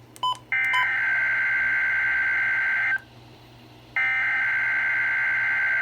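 NOAA Weather Radio SAME digital alert header from station KIH35 for the required weekly test: a harsh, buzzing data tone about two and a half seconds long, a one-second gap, then a second identical burst. A few short beeps sound just before the first burst.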